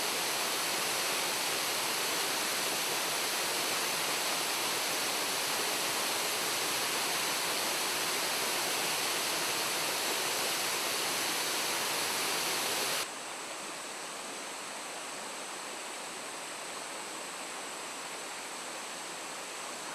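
Waterfall rushing: a steady, even roar of falling water that drops suddenly to a quieter level about two-thirds of the way through.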